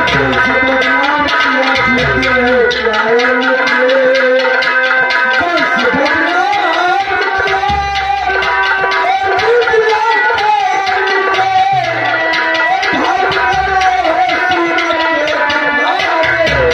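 Instrumental music: hand drums beating a quick, even rhythm under steady held notes and a wavering melody line.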